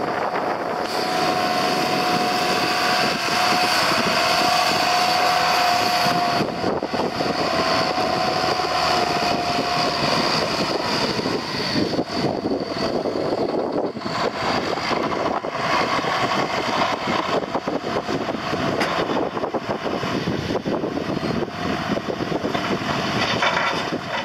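John Deere front-loader tractor's diesel engine running as it works. A steady whine rides on it for roughly the first ten seconds.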